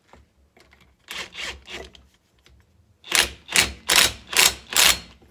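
Cordless drill driving a socket on an alternator's pulley nut in short trigger bursts: three near the start, then five louder ones in quick succession, tightening the pulley back on during reassembly.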